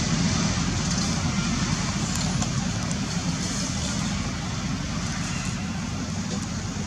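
Steady low rumble and hiss of road traffic, with no distinct events.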